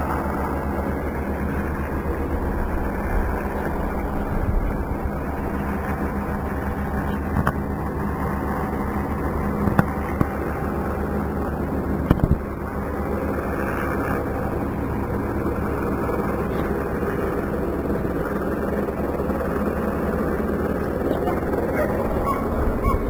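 Steady low engine noise with a fast pulsing rumble. A few short sharp knocks come about ten and twelve seconds in.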